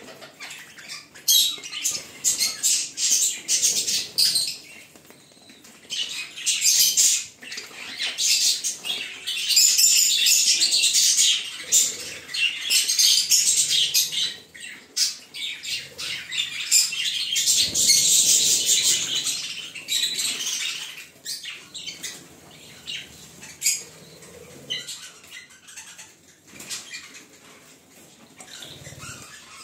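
A flock of budgerigars chattering and chirping, high-pitched and busy, in loud stretches that come and go. It grows quieter over the last several seconds.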